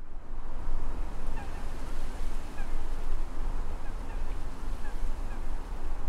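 A steady low rumble and hiss, with scattered short, faint bird calls over it.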